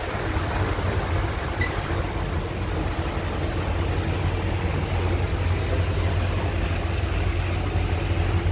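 Passenger ship's engine running underway with a steady low hum, under a constant hiss.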